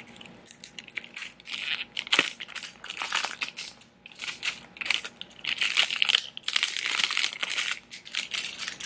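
Clear plastic shrink-wrap crinkling and rustling in irregular bursts as it is peeled and pulled off a cardboard makeup palette.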